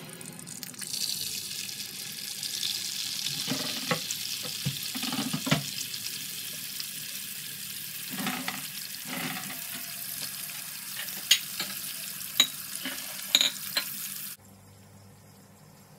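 Egg frying in hot oil in a frying pan: a steady sizzle that starts about a second in, with crackling and a few sharp pops of spitting oil near the end. The sizzle cuts off suddenly shortly before the end.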